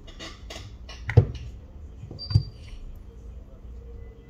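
Phone parts and small tools handled during a smartphone screen repair: light scraping, then two sharp taps or clicks about a second apart.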